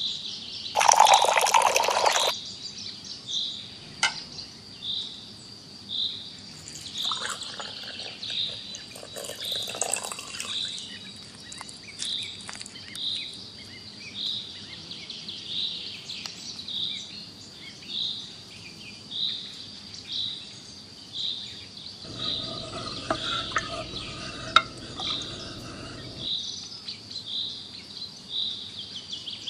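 Water poured from a small steel tumbler into a miniature clay pot of rice for about a second and a half, about a second in. Throughout, a high chirp repeats about once a second over a thin steady high tone, and in the latter part a low droning tone sounds for about four seconds.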